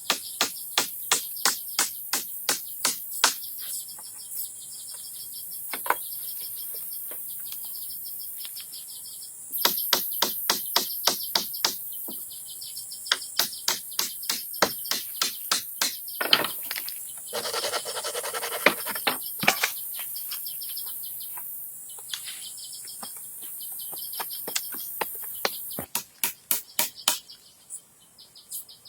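Runs of sharp strikes from hand tools at work, about two to three a second, with short pauses between runs. A steady chorus of insects and birds goes on underneath.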